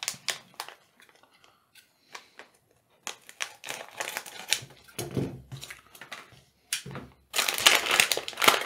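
Plastic foil LEGO minifigure bag crinkling as it is handled and cut with scissors, then a dense, louder burst of crinkling near the end as the bag is pulled open.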